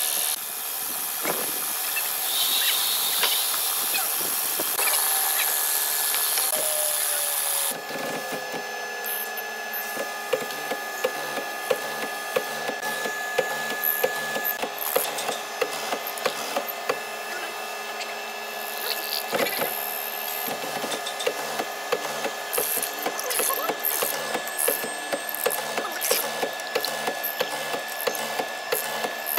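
Hollow-chisel mortiser cutting mortises in a red hardwood beam: the motor runs with a steady whine while the square chisel and auger plunge into the wood. The cut goes as a dense run of short knocks and crackles from the chips.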